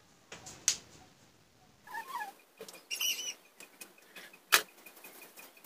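Small knocks and clicks of cosmetics being picked up and set down on a wooden dressing table, the loudest a sharp knock about four and a half seconds in. Short high chirps come about two and three seconds in, and a faint, fast ticking of about five a second starts near the end.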